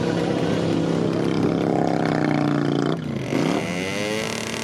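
Vintage motorcycle engine revved up and held high, dropping off sharply about three seconds in, blipping up once more, then settling to a steadier lower run. The revving is for a loudness reading taken at the rear of the bike.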